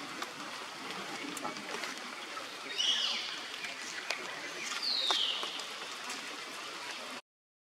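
Two short, high-pitched animal calls over a steady outdoor hiss: one about three seconds in and a falling one about five seconds in. The sound cuts off abruptly just before the end.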